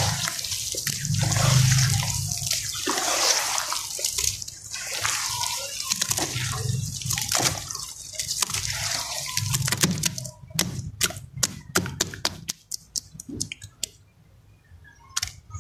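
Hands squelching and squeezing wet sand-and-cement mud in a plastic tub, with water sloshing. About ten seconds in it turns to a quick run of short wet smacks and clicks as the hands pat the watery surface, then goes quieter.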